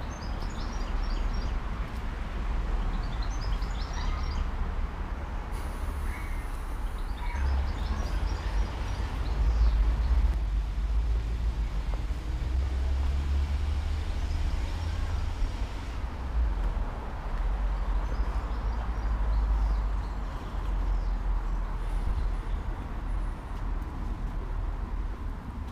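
Wind buffeting the microphone as a steady, uneven low rumble, with small birds chirping in short bursts a few times, mostly in the first half.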